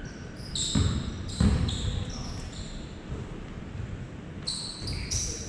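A basketball bouncing on a hardwood gym floor, the loudest thuds about a second and a second and a half in, with short high sneaker squeaks from players running on the court, all echoing in the large hall.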